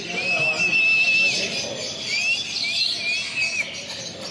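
Parrot whistling: one long, level whistle, then four short rising whistles, over a busy background of small birds chirping.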